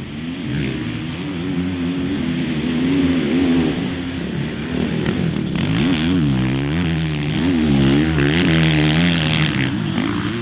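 450cc four-stroke motocross bikes racing, engines revving up and down through the gears, the pitch swooping most strongly in the second half.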